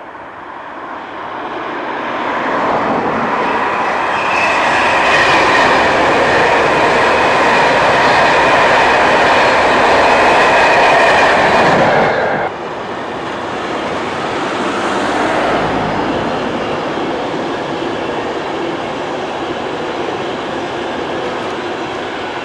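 A train passing at speed: the sound builds over the first few seconds into a loud, steady rush with a high whine running through it. About twelve seconds in it drops suddenly to a lower level, and a quieter rush carries on to the end.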